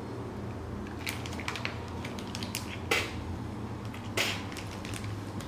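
Plastic candy packet crinkling as it is handled: a scattering of sharp crackles, the loudest about three and four seconds in, over a low steady hum.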